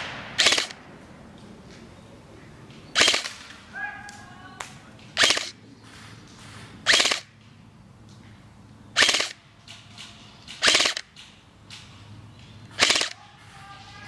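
Airsoft rifle firing single shots, about one every two seconds, seven sharp cracks in all.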